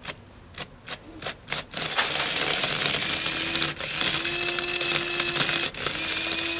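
A quick series of sharp clicks, then about two seconds in the Otto electric grinder's motor starts grinding CBD flower, a steady whir with a held hum. It drops out briefly twice as the grinder stops and reverses direction.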